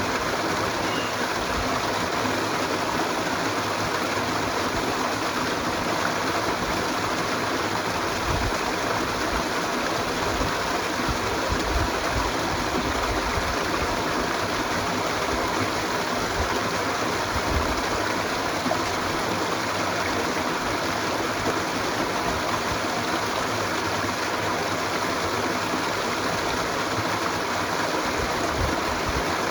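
Flowing stream water rushing steadily and without a break.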